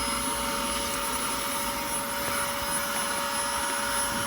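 Dyson DC25 Animal upright vacuum cleaner's motor running steadily, a constant whine over a rushing airflow.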